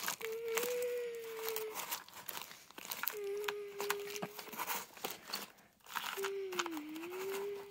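Small bits of paper and plastic trash crinkling and clicking as they are pushed by hand into a toy garbage truck's plastic hopper. A steady tone comes and goes three times, the last one dipping in pitch and rising again.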